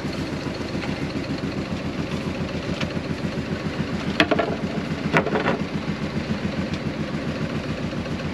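Fishing boat's engine running at idle with a steady, even throb, with two sharp knocks about four and five seconds in.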